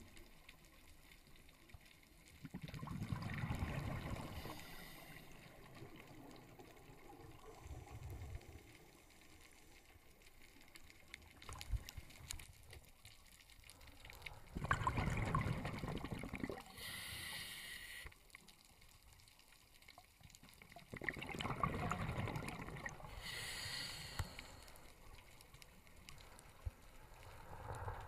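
Scuba diver's exhaled bubbles from a regulator bubbling past an underwater camera three times, each about three seconds long, with a short high hiss near the end of the second and third.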